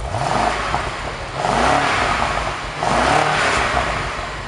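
BMW 650i's N63TU twin-turbo V8 revved three times through an aftermarket Dinan exhaust, each blip rising and falling in pitch before it drops back toward idle near the end.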